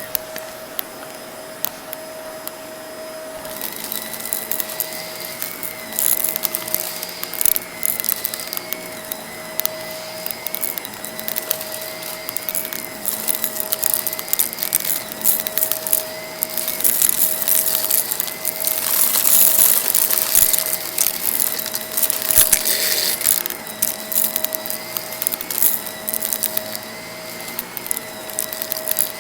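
Vacuum cleaner running with a steady whine while it picks up crunchy debris from a rug, the grit crackling as it is drawn in. The crackling is densest about two-thirds of the way through.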